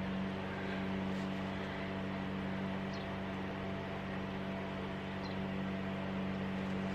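Small lawn mower engine running in a steady, unchanging hum.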